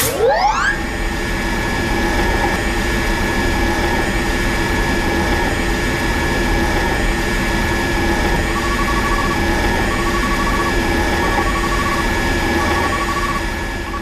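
Electric water pump motor spinning up with a rising whine over the first second, then running steadily with a hum over a rushing noise. About two-thirds of the way through, a high beep starts repeating about once a second.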